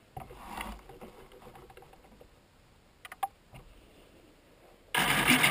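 Faint rustling and a few light clicks, then about five seconds in the Multiplex Mentor RC plane's electric motor and propeller start up suddenly and run loud.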